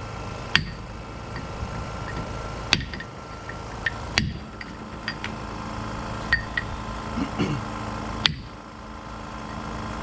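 Hammer blows knocking a ring gear off a limited-slip differential carrier, worked around four points so it comes off evenly. Four sharp metallic strikes land a second or more apart, with lighter clinks between them.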